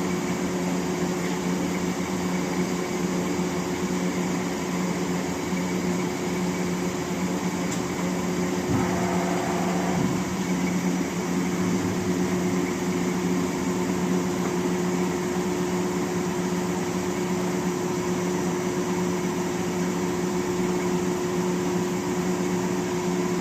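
Okamoto CNC cylindrical grinder running, a steady machine hum with two low tones held throughout. A brief higher tone comes in about nine seconds in.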